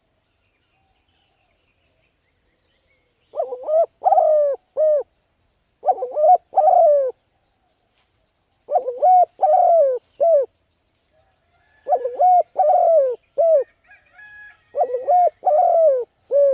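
Spotted dove cooing: five phrases of a few low, bending coos each, repeated about every three seconds, starting a few seconds in. This is the dove's advertising coo, the call used to lure and train birds.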